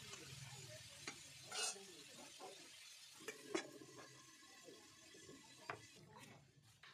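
Potato pieces frying in oil in a steel wok, a faint sizzle, while a metal spatula stirs and scrapes them. Sharp clinks of steel utensils and lid follow, the loudest about three and a half seconds in, and the sizzle fades once the wok is covered.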